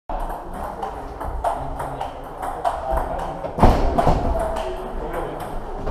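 Table tennis balls clicking off bats and tables in quick, irregular succession from rallies on more than one table, with one louder thud a little past halfway.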